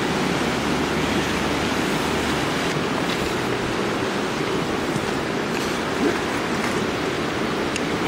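Steady rushing of a shallow river running over stones.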